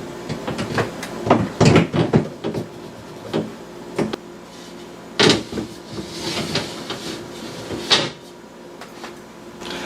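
Repaired plastic refrigerator shelf being handled and set back into the fridge: a run of separate knocks and clatters, the sharpest about one and a half, five and eight seconds in.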